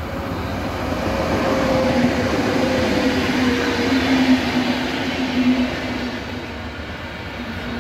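A train passing by, growing louder to a peak a little past the middle and then fading. A steady low hum with a fainter higher tone above it runs through a broad rush of noise.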